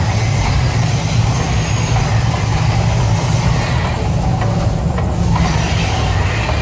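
Man-made volcano show erupting, a deep steady rumble as fireballs flare from the lagoon, with a hiss of noise over it.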